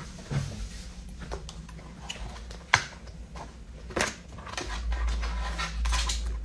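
Handling noise from a phone being set up for a live stream: scattered sharp clicks and taps, the loudest nearly three seconds in and again at about four seconds, with a low rumble over the last couple of seconds.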